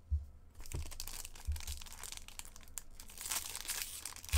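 Foil wrapper of a 2022-23 Stature hockey card pack being torn open and crinkled by hand, a crackling rustle that builds about three seconds in. A few dull bumps from handling sound early on.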